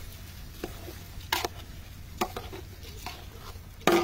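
Metal spoon scraping and knocking against a metal cooking pot as thick rice khichuri is stirred, in short irregular strokes about once a second, the loudest near the end.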